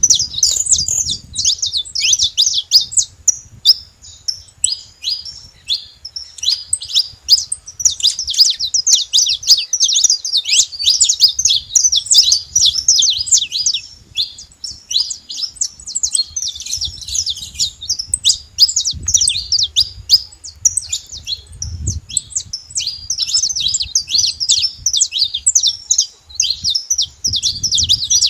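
Saffron finch singing: rapid high-pitched runs of chirps and trills, delivered in phrases broken by short pauses.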